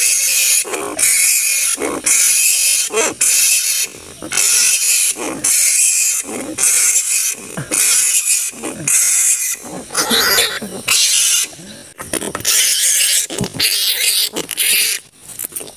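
Flying fox (kalong) calls: short, harsh, noisy squawks repeated about once a second.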